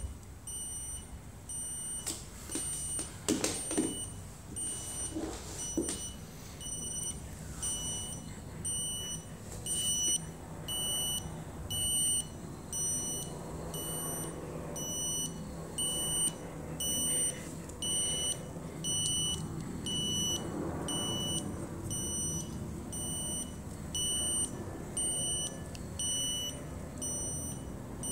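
An electronic beeper sounds a short, high beep about once a second, steadily. A few knocks come in the first few seconds.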